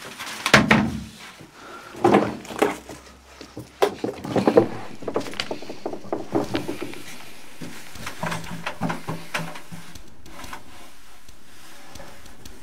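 Rummaging through a cellar: irregular knocks, clatters and scrapes of wooden furniture and objects being moved and searched, busiest in the first half and dying down to quieter handling after about eight seconds.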